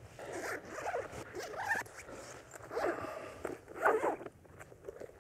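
Zipper on a drone backpack being pulled open in about four short rasping strokes.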